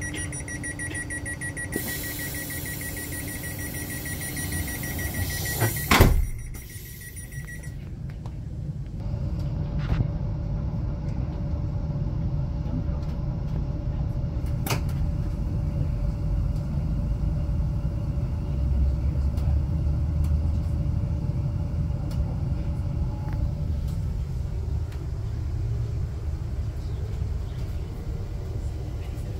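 Train door warning sounding as rapid high beeping, then a loud thud about six seconds in as the doors shut. After that the electric train pulls away with a low running rumble and a steady motor hum.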